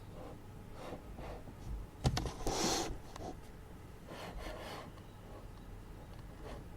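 Paper being handled on a desk: a few sharp clicks about two seconds in, followed by a short sliding rustle, then a softer rustle about four seconds in. A steady low hum from an air purifier runs underneath.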